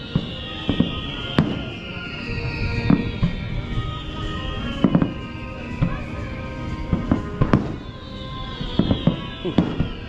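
Fireworks shells bursting: a string of sharp bangs at irregular intervals, some in quick pairs and clusters, over steady music.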